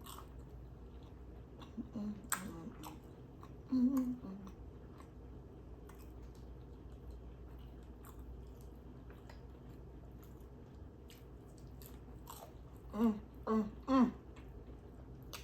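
Close-miked mouth sounds of someone eating: soft chewing and small wet clicks, with a few short voiced sounds from the eater, the loudest three in quick succession near the end.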